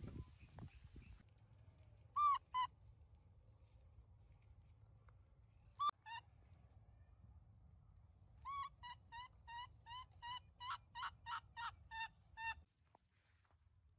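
Baby macaque giving short, high-pitched, rising-and-falling calls: two pairs of calls, then a rapid run of about a dozen at roughly three a second that stops abruptly near the end. Briefly at the start, firewood sticks knock and rustle, and a faint steady high whine sits under everything.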